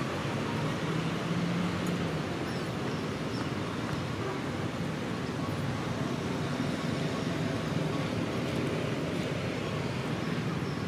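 Steady low rumble of road traffic and idling vehicles, with a few faint high chirps.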